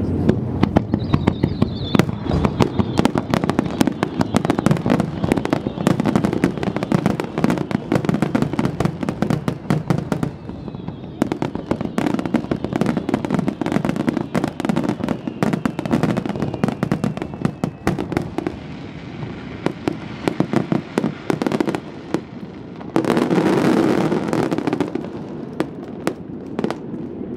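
Wide starmine fireworks barrage: shells launched and bursting in rapid succession, many sharp bangs a second. The bangs thin out after about ten seconds, and a louder, denser spell of bangs comes near the end.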